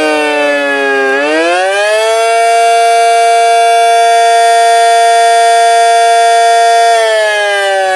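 Small electric model siren (a 'mini cyclone') winding down, then winding back up about a second in and holding a steady high pitch for about five seconds. It winds down again near the end, a rise-and-fall wail pattern.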